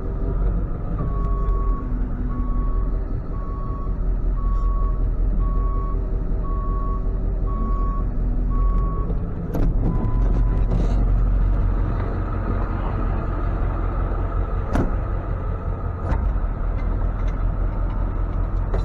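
Truck reverse alarm beeping about once a second, eight times, over the steady running of a truck engine. After it stops come a few sharp knocks and clicks.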